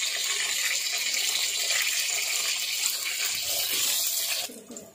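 Eggplant slices sizzling as they shallow-fry in hot oil in a steel wok, a steady hiss that cuts off suddenly near the end.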